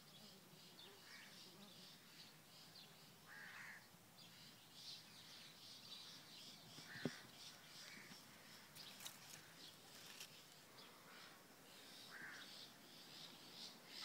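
Faint outdoor ambience of scattered distant bird calls, about five short caw-like calls, over a steady run of high chirping. A faint low hum of the bee colony fades out in the first few seconds, and a single sharp tap comes about seven seconds in.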